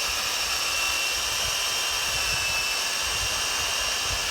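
Black & Decker Alligator electric lopper running with a steady high whine, its chain cutting through a tree branch.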